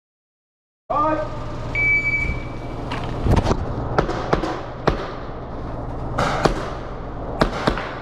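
A shot timer beeps once, a steady tone about a second long, then airsoft pistol shots follow as a string of sharp cracks, with a short pause midway.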